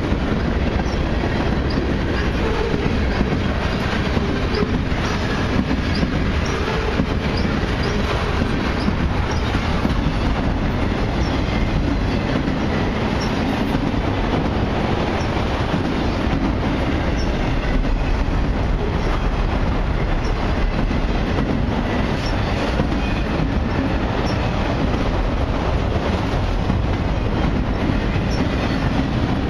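Freight cars of a long CN train rolling past at steady speed: a continuous rumble of steel wheels on rail with clickety-clack over the rail joints and occasional brief high wheel squeals.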